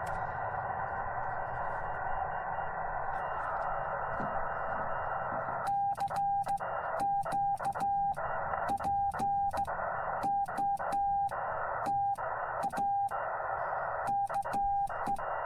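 Yaesu FT-891 transceiver in CW mode: steady receiver hiss, then about six seconds in a single steady Morse code tone starts keying on and off in dots and dashes over the hiss.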